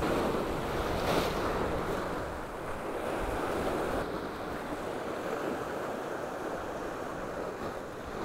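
Sea surf washing and breaking against a rocky shore: a steady rush of water, a little louder in the first second or so, then easing off slightly.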